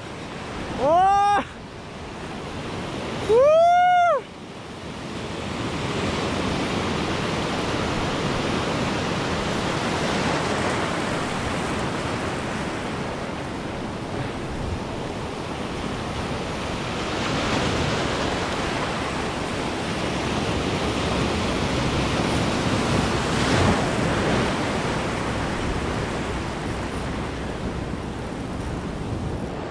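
Ocean surf washing over shallow rocks: a steady, even rush of breaking and receding water with wind on the microphone. Near the start, two short, loud vocal cries from a man, each rising then falling in pitch.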